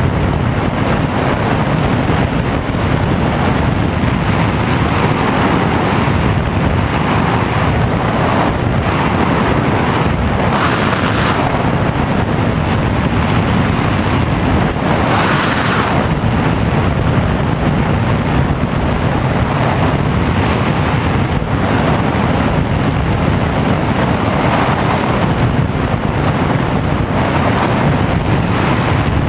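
Rushing airflow over the onboard camera of a Sky Surfer RC foam glider, gliding with its motor off: loud, steady wind noise with no motor tone. It swells briefly louder twice, about a third of the way in and again about halfway.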